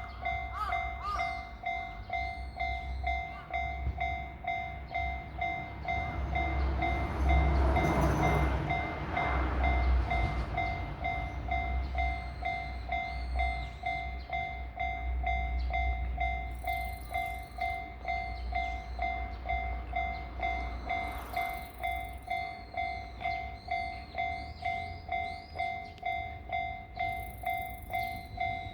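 Japanese level-crossing warning bell ringing steadily, an electronic two-tone ding repeating over and over. A train passes over the crossing with a rumble from about seven to eleven seconds in.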